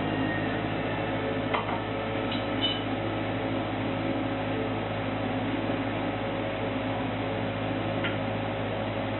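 Steady hum and hiss of kitchen machinery, like a ventilation fan or air conditioner running, with a few faint clicks about one and a half, two and a half, and eight seconds in.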